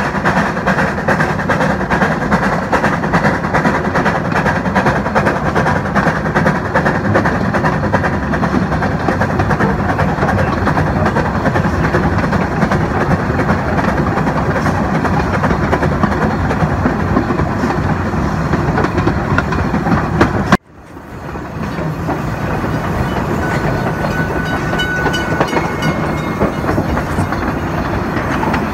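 1901 NA class 2-6-2 narrow-gauge steam tank locomotive running under steam, heard from close behind it, with the carriages' wheels clattering over the track. About twenty seconds in the sound cuts out abruptly for a moment and comes back a little quieter, with faint high squeals.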